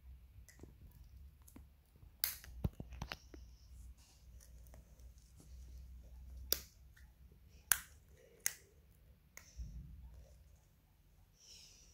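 Plastic candy wrappers crinkling and snapping as they are handled and torn open, a scattering of sharp crackles a second or so apart.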